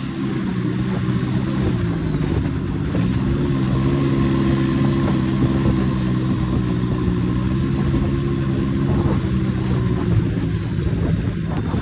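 Engine of a Thai long-tail racing boat running steadily at an even speed, its pitch dipping and picking up again about three seconds in.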